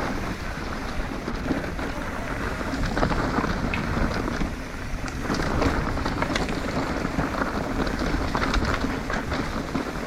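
Yeti SB150 mountain bike descending a dry, rocky dirt trail: tyres crunching and crackling over gravel and rock, with constant clicks and rattles from the bike and wind rumbling on the microphone.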